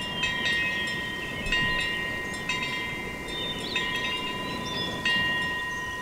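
Small hanging metal wind bell, its clapper swung by the wind through the fish-shaped wind catcher, striking the bell about six times at uneven intervals. Each strike rings on in a clear, lingering tone that carries into the next.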